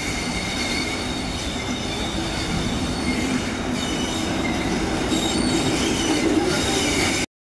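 Steady loud rumbling noise laced with several high, steady whining tones, cutting off abruptly near the end.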